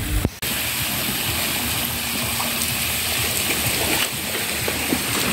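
Steady rushing of running water, an even wash of noise that sets in about half a second in, as from the hotel pool's flowing water.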